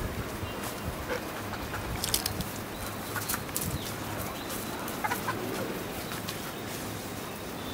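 Free-range chickens clucking in short, scattered calls, with a few sharp clicks and rustles among them.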